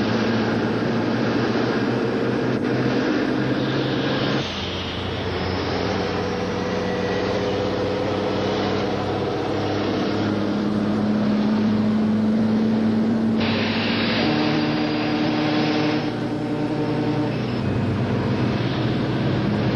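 Tractor-trailer diesel engines running steadily at road speed. The engine note changes abruptly a few times: once about four and a half seconds in, and again about thirteen and sixteen seconds in.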